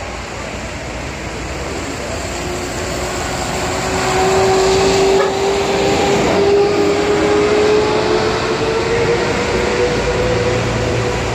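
Intercity coaches passing on a rain-wet road: a steady hiss of tyres on wet asphalt swells about four seconds in, under a bus's engine and drivetrain whine that climbs slowly in pitch as the coach pulls away.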